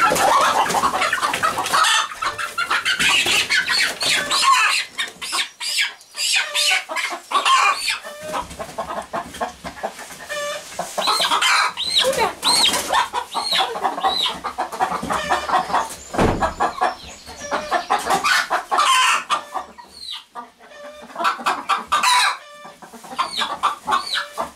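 Several young domestic chickens clucking and squawking in a hen house while one is caught and held by hand, with wings flapping and straw rustling. A run of short repeated squawks comes about halfway through.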